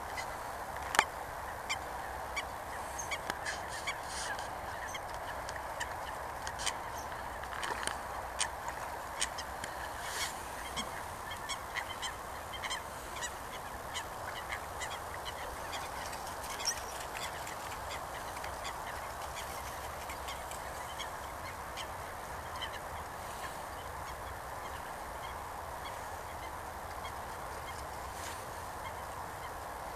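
Geese calling in a steady background chatter, with a scatter of short sharp clicks over the first half, the loudest about a second in.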